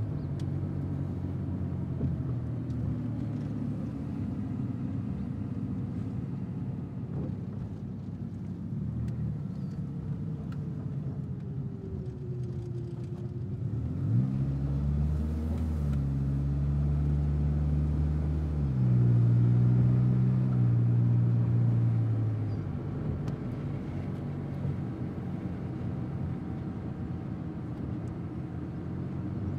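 Car engine and road noise while driving, a steady low hum. Its pitch changes several times around the middle and it is loudest about two-thirds of the way through.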